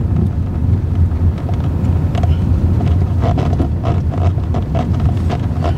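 A vehicle driving along a dirt track: a steady low rumble of engine and tyres with scattered small knocks, and wind on the microphone.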